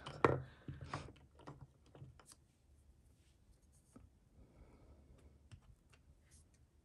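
Small rubber stamps being tapped onto a tiny ink pad and pressed onto paper: a sharp thump just after the start, then a run of light taps and clicks that trail off into faint occasional ticks.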